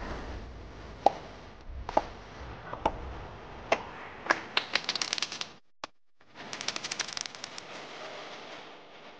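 Scattered single hand claps from an audience, building into two short runs of quick clapping about halfway through, with a brief drop-out between them.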